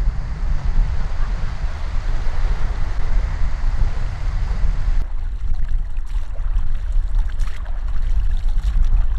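Wind buffeting the microphone with a low rumble, over rushing water. About five seconds in the rushing drops away abruptly, leaving the wind rumble and a few light taps.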